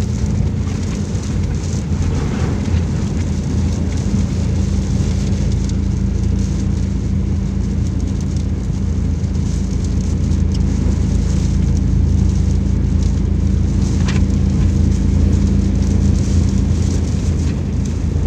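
Heavy rain falling steadily, with a steady low hum underneath.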